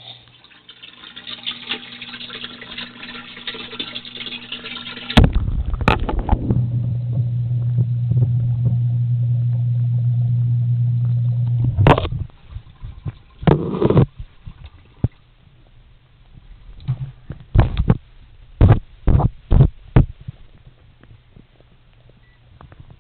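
Scratching and rustling, a sharp knock, then a steady low microwave-type hum for about five seconds that ends with a click, followed by a run of knocks and clatters.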